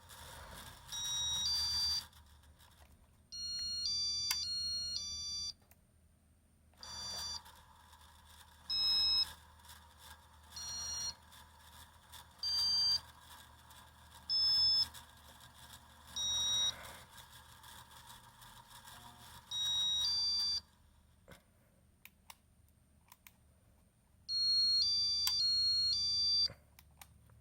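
A Casablanca InteliTouch ceiling-fan control beeps about ten times, with short electronic tones and quick multi-note chirp patterns, as the fan's speed settings are stepped through. Under the beeps, the Emerson K55 motor runs faintly with a slight hiss from its bearings.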